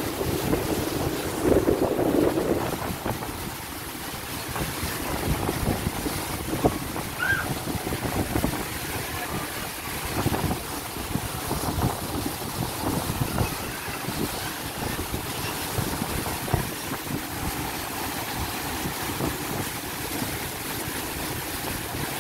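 Wind buffeting the microphone on the deck of a moving steamboat, over the steady rush of churned water in the boat's wake.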